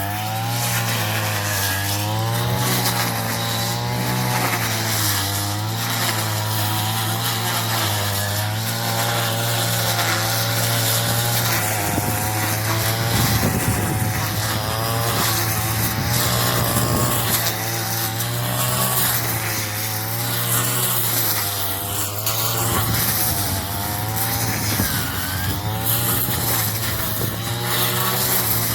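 Small engine of a straw-cutting machine running under load while cutting straw, its pitch wavering up and down, with a rougher, noisier stretch about halfway through.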